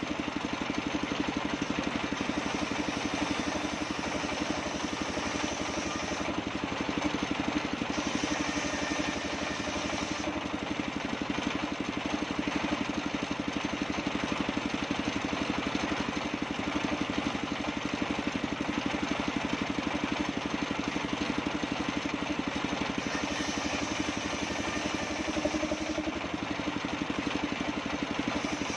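Engine-driven mobile circular sawmill running steadily, its belt turning the saw blade as waru wood boards are fed through and ripped.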